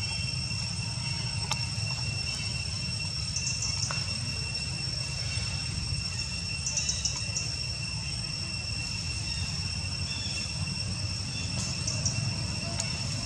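Insects droning steadily on one high, level tone, with short high chirping trills a few times, over a constant low rumble.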